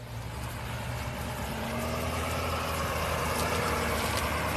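Engine of a Ford F-550-based 6x6 brush truck running as it drives over dry grass, a deep steady drone that grows louder over the first couple of seconds and then holds.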